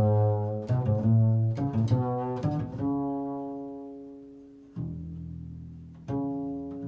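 Double bass played pizzicato: a quick run of plucked notes, then a long note left to ring and fade, followed by two single plucks a little over a second apart, each ringing out.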